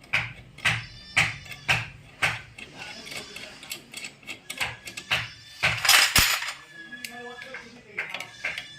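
Metallic clicks repeating about twice a second, with a louder clattering burst about six seconds in.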